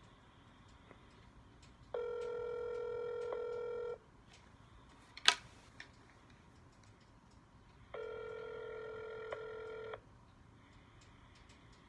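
Telephone ringback tone heard over the phone line: two rings, each about two seconds long and four seconds apart, as an outgoing call to a conference line rings unanswered. A sharp click between the rings is the loudest sound.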